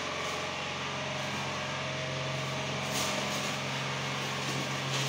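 A steady low engine hum runs throughout. About three seconds in, the plastic wrapping of a mattress rustles as it is handled.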